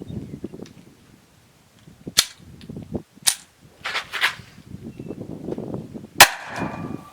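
Sharp cracks of a homemade bolt launcher fired with .22 nail-gun blanks, several in all, the loudest about six seconds in with a brief ringing after. Softer rustling and handling noise lies in between.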